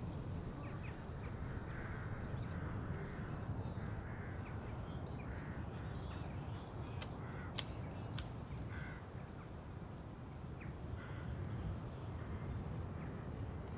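Crows cawing now and then over a steady low outdoor rumble of wind and ambience, with a few sharp clicks about seven to eight seconds in.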